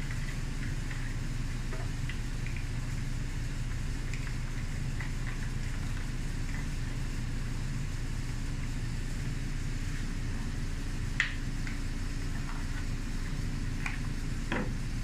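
A steady low machine hum in the background, with faint taps and scrapes of a servo extension lead being fished through the inside of a model aircraft wing, and a sharp click about eleven seconds in and another near the end.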